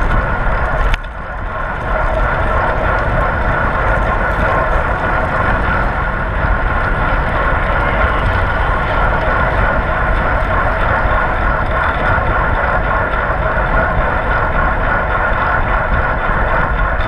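Steady wind and road noise of a fixed-gear bicycle racing at speed, heard through a mounted action camera's microphone, with a brief dip about a second in.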